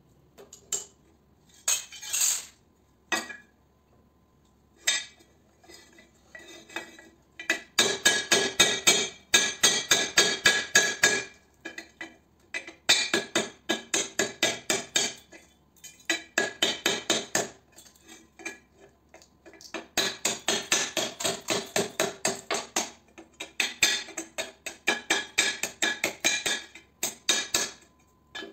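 Hand hammer striking metal in quick runs of blows, about four to five a second, each run lasting a few seconds with short pauses, while a ballast is broken apart for scrap. In the first seven seconds there are only a few scattered metallic clinks and knocks of parts being handled.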